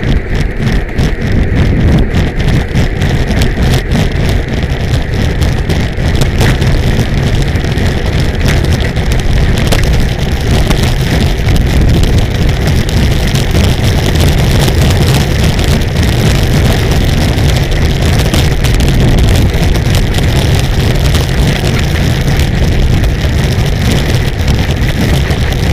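Steady wind rush and road rumble on a bicycle-mounted camera's microphone while riding at speed, with frequent small knocks, most of them in the first half.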